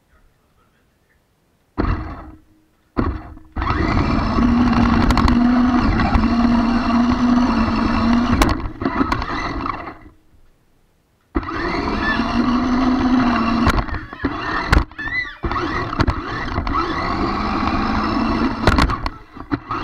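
Electric motor and gears of a radio-controlled car carrying the camera. It gives two short blips, then runs hard with a steady whine for several seconds as the car drives across carpet. It stops for a moment and runs again from just past the middle.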